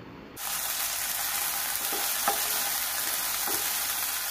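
Chopped onion, green chilli and ginger-garlic paste sizzling in hot oil in a nonstick pan as a spatula stirs them, with a few light scrapes of the spatula. The steady sizzle starts suddenly about half a second in.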